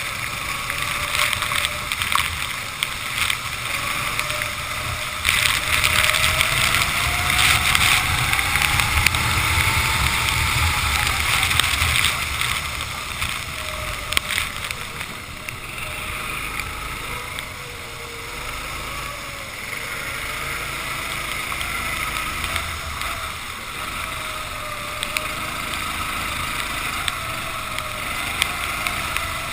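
Racing kart engine heard from on board, its note climbing and falling repeatedly as the driver accelerates and lifts, over a steady hiss of wind and spray from the wet track.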